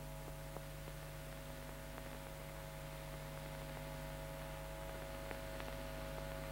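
Steady electrical hum with faint hiss on an old film soundtrack, with a few faint clicks.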